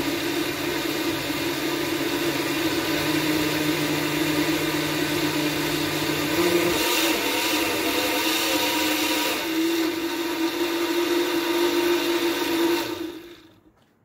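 Countertop blender motor running at speed, blending thick homemade tomato pizza sauce. It runs steadily, its note shifting slightly about halfway through, then cuts off and winds down near the end.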